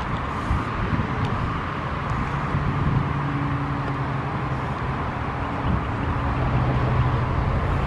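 Steady low engine hum with outdoor traffic noise, and a few faint ticks.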